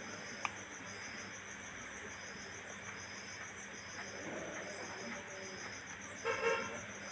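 Crickets chirping steadily in a fast, even pulse. About six seconds in, a vehicle horn gives one short toot, the loudest sound here.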